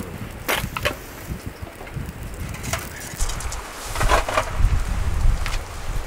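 Wood campfire crackling, with scattered sharp snaps and pops and a longer crackle about four seconds in, over a low rumble in the second half.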